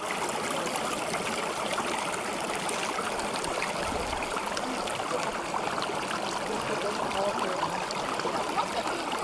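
Small, shallow mountain stream running and splashing over rocks: a steady babbling trickle.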